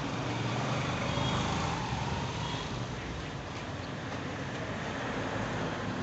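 Road traffic rumble, with a vehicle swelling louder about a second in and then easing off.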